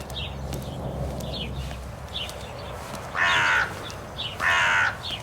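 Crow cawing twice, two harsh calls of about half a second each, the first about three seconds in and the second just over a second later. Small birds chirp faintly before the caws.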